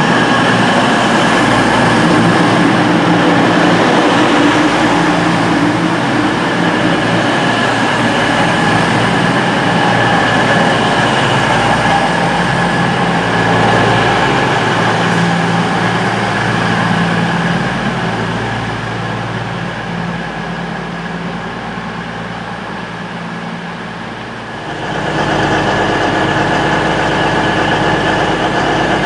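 Diesel passenger train running through the station, its engine note and rail noise steady and then slowly fading away. About three-quarters of the way in, the sound changes abruptly to a steadier diesel engine sound, as of a train standing with its engines running.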